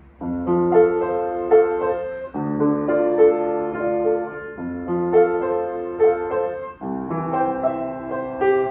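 Baldwin upright piano playing a gentle piece, a repeating figure of notes over chords that change roughly every two seconds. It starts about a quarter-second in.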